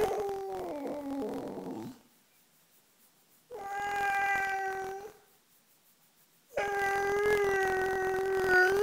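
Small long-haired dog making three drawn-out, howl-like 'talking' calls with short silences between them; the first wavers and falls in pitch, the second and third hold a steady pitch, the last rising at the very end.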